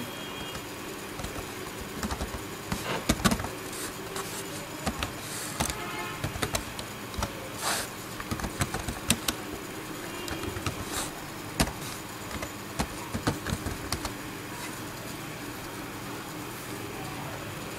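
Computer keyboard being typed on in irregular runs of key clicks, over a steady low hum.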